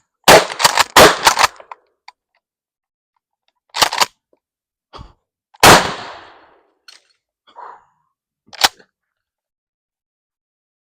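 Maverick 88 pump-action shotgun firing: a cluster of loud, sharp reports in the first second and a half, then single bangs about four and six seconds in, the second of them trailing off in an echo, and another sharp report near the end.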